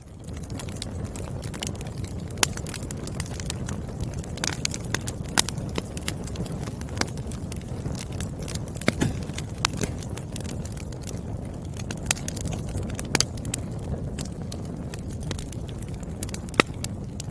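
Wood fire crackling in a fireplace: a steady low rush of flames with irregular sharp pops from the burning logs, a few louder ones standing out, one about two and a half seconds in and one near the end.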